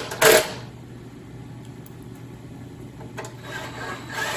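Cordless driver running screws into a snowmobile engine's fan shroud: one short, loud burst right at the start, a quieter stretch, then the driver building up again near the end.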